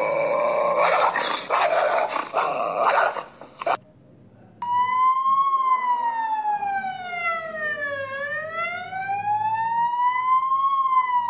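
A dog-like growling and snarling for the first four seconds or so, then, after a short gap, a single emergency siren wail that falls slowly in pitch and rises again.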